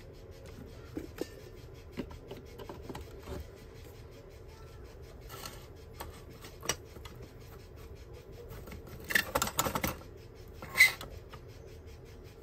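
Small hand tools being handled in electronics repair work: scattered light clicks, a short burst of rapid scratchy scraping about nine seconds in, and one sharp click just after.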